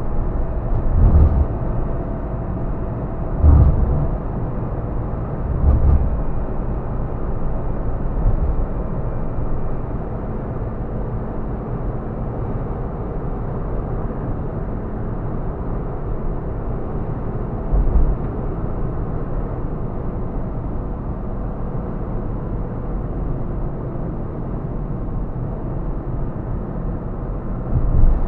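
Vehicle driving along a city road, heard from inside the cab: a steady engine and road rumble. A few low thumps come in the first six seconds, another about two-thirds through, and one more near the end.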